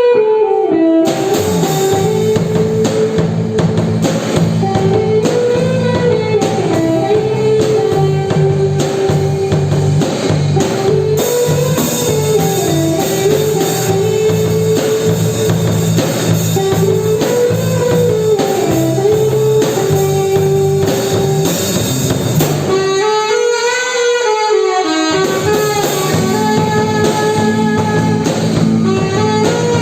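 Band music: a repeating lead melody over bass and drums. About 23 seconds in, the bass and drums drop out for a couple of seconds, leaving the lead line alone, then come back in.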